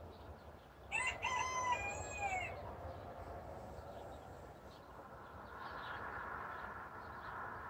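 A rooster crows once, starting about a second in and lasting about a second and a half, with the pitch falling at the end. A faint, steady rushing sound follows from about five seconds in.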